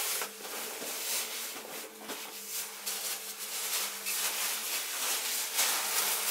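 Rustling and crinkling of plastic food bags and rucksack fabric as items are packed into the pack, with a faint steady hum underneath.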